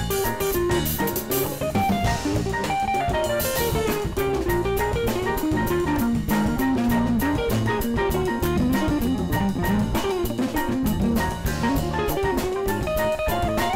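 Funk band instrumental: a hollow-body electric guitar plays a single-note line that wanders up and down, over electric bass, drum kit, congas and piano.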